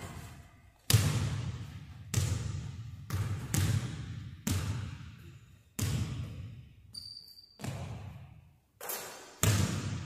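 A basketball bouncing on a hardwood gym floor: about ten irregular hard thuds, each trailing off in a long echo through the large empty hall. A brief high squeak past the middle.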